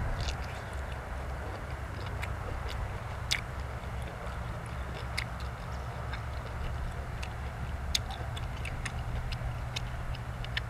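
Close-up eating sounds: irregular sharp clicks and smacks of chewing, a few a second, over a steady low rumble.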